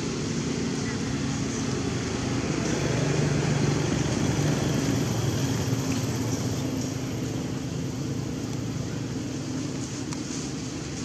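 Steady low drone of a passing motor vehicle's engine, swelling a few seconds in and then slowly fading.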